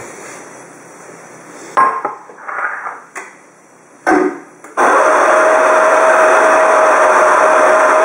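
A few knocks and clatters of the portafilter being handled at the group head, then, about halfway through, the homemade espresso machine's water pump starts and runs steadily with a loud hiss and a constant hum, pushing water through the group head.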